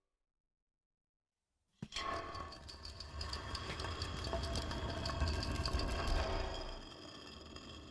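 Silence, then about two seconds in a sudden start of dense foley sound effects made from household objects: a low rumble under a busy run of small clicks and rattles that keeps going.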